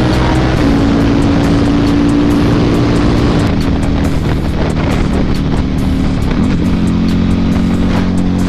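KTM RC8R's V-twin engine running through a Jester aftermarket exhaust. It holds a fairly steady pitch, with small shifts in engine speed about half a second in and again near the six-and-a-half-second mark.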